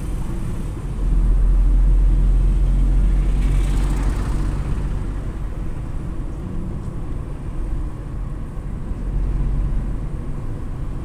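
Steady low rumble of a moving car's engine and tyres heard from inside the cabin, growing louder about a second in.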